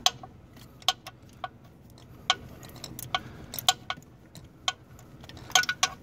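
Socket ratchet clicking as it is worked on a bolt, sharp single clicks and short clusters coming irregularly about every half second to a second.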